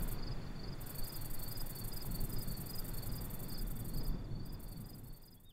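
Crickets chirping in a steady, even rhythm, about two to three chirps a second, over a low background rumble. Everything fades out near the end.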